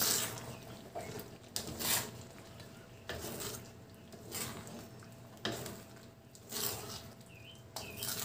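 A wooden spatula stirring a thick pork stew in a metal wok, scraping against the pan and moving the chunky sauce in strokes a little over a second apart.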